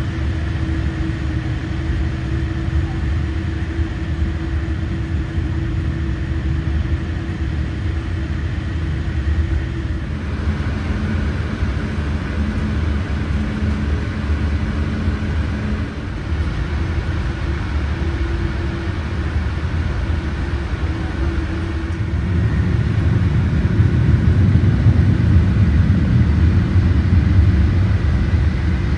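Boeing 787-8 jet engines idling on the ground, heard as a steady low rumble inside the cabin with a few faint steady tones. The rumble grows a little louder from about two-thirds of the way in.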